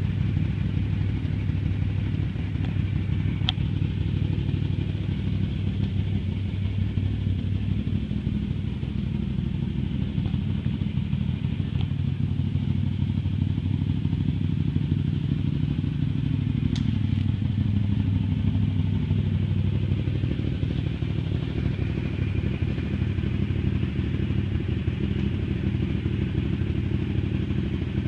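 Can-Am Maverick 1000R's V-twin engine idling steadily, with a slight rise and fall in pitch midway and a couple of faint clicks.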